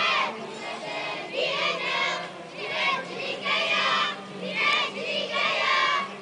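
Children and adults in a walking procession singing together in unison, in short phrases with brief pauses between.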